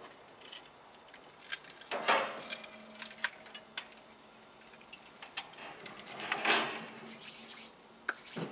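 Rusted-through porcelain-coated steel heat plates from a Char-Broil gas grill being handled and lifted: thin, flaking sheet metal clinking, scraping and crumbling, with scattered light clicks and two louder scrapes about two and six and a half seconds in.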